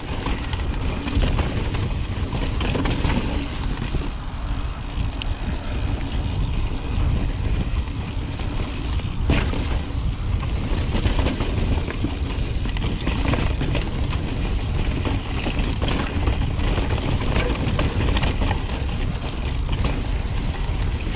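A 2018 Intense Carbine 29er mountain bike rolling fast down a rocky singletrack, its tyres and frame rattling under a heavy low rumble of wind on the GoPro's microphone. A sharp knock comes about nine seconds in.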